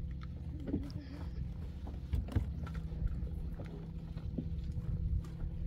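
Small boat on the water: scattered knocks and thumps against the hull over a low steady hum.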